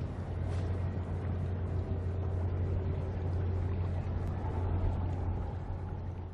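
Steady low drone of a cargo ship's diesel engine heard from far off across the water, over a hiss of background noise.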